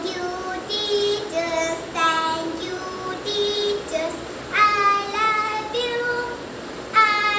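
A young girl singing a song solo, without accompaniment, in short phrases of held notes with brief breaks between them.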